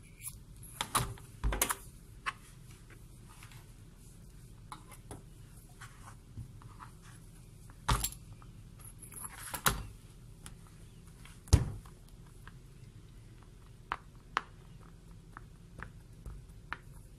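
Metal fork clinking and tapping on a countertop while the edges of a pierogi are crimped, with small ticks and about five louder knocks scattered through.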